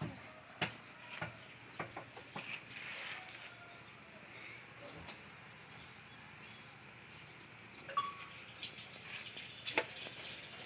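Small birds chirping in many short, high notes, with a few light knocks and clicks from objects being handled.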